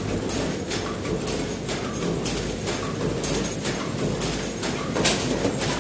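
Paper cup forming machine running, with a steady hum and regular mechanical clacking at about three strokes a second as it turns out cups.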